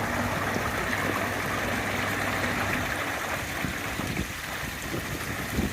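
Steady rushing and trickling of running water into a koi pond, with a few soft low bumps near the end.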